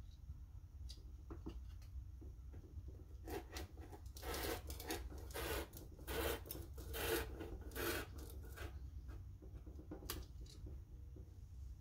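Rotary cutter rolling along the edge of a metal ruler, cutting through the paper template and T-shirt fabric in a quick run of several short scratchy strokes from about three seconds in, with a few light taps and clicks before and after.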